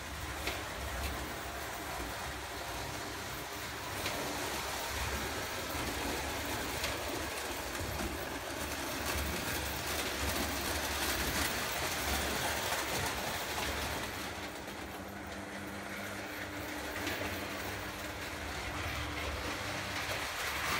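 Prewar Lionel O gauge electric-type toy locomotive running on tinplate track while hauling freight cars. It makes a steady mechanical running noise with scattered clicks from the wheels on the rails.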